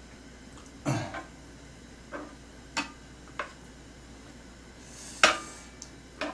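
Tongs clicking and tapping against a wooden cutting board and a grill pan as raw pork belly slices are picked up and laid down to cook: about seven short, sharp clacks, the loudest about five seconds in.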